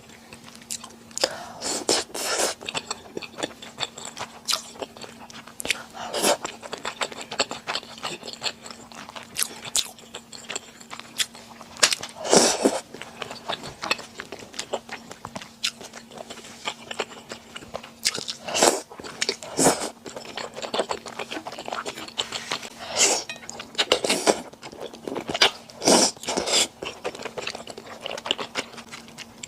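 Close-miked eating of Chinese glass noodles and rice balls: irregular chewing and biting sounds, with a handful of louder, sharper bites spread through, over a faint steady hum.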